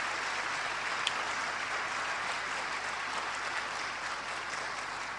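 Audience applauding, a steady clapping that slowly fades near the end.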